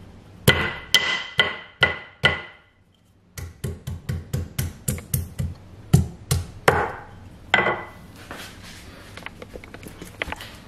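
Ginger being pounded with a pestle in a mortar. First come five ringing strikes about half a second apart, then a short pause and a quicker run of about four strikes a second, easing into softer tapping and scraping near the end.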